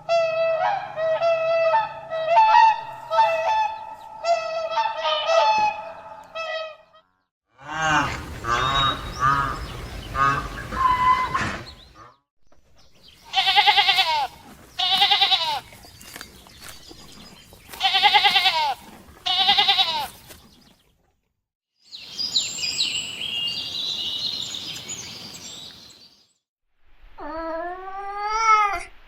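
A run of different animals calling, one short clip after another, each separated by a brief silence. There is a long string of repeated calls, then another, then four loud calls in two pairs, a noisier stretch, and rising-and-falling calls near the end.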